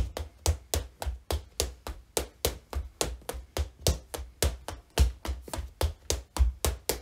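Tap shoes' metal taps striking a hard dance floor in a steady, even rhythm, about four to five sharp clicks a second with a low thud under many of them: a tap dance combination danced at slow tempo.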